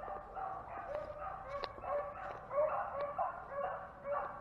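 A pack of beagle hounds baying, with several voices in short overlapping calls several times a second: the chorus of hounds running a scent trail.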